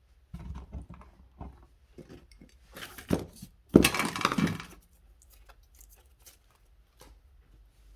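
Clinks, clicks and knocks of hand tools and copper electrical wire being handled. There is a sharp knock about three seconds in, then a louder clatter lasting about a second just before the four-second mark.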